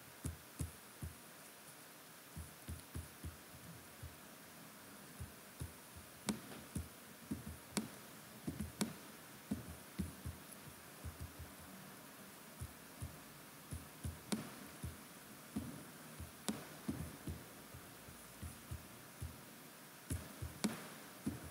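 Faint, irregular soft thumps and occasional sharper clicks, sometimes several a second, with quiet gaps between.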